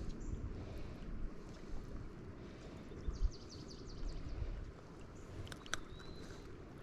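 Steady low rumble of flowing river water and wind, with scattered faint clicks, a quick run of light ticks about three seconds in, and a short high chirp near the end.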